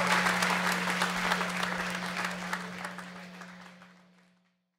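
Audience applauding, fading out to silence over about four seconds, with a steady low hum underneath.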